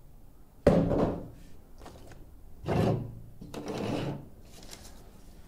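Parts being handled on a tabletop: a sudden thunk just under a second in, then softer scraping and rustling around three and four seconds in as the coiled air hose and relay are picked up.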